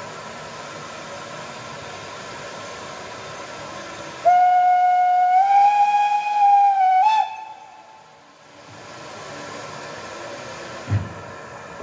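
Steam locomotive standing with a steady hiss of escaping steam, then sounding one long whistle blast of about three seconds that steps up slightly in pitch partway through. A short low thump near the end.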